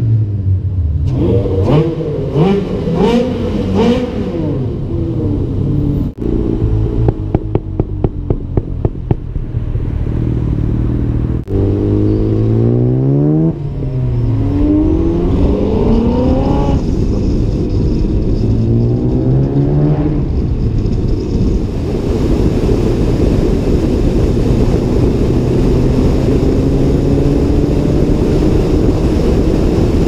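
Ferrari F430 Scuderia's V8 revved in a concrete underpass, echoing, then a quick string of exhaust pops about seven seconds in. It then accelerates hard through three gears, the pitch climbing and dropping at each upshift, and settles into a steady engine drone under wind and road noise at cruising speed.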